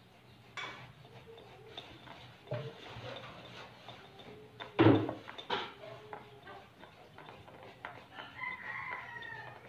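Metal box grater rasping boiled taro into a bowl, with scattered clicks and one sharp knock about five seconds in. Near the end a rooster crows once, a long, slightly falling call.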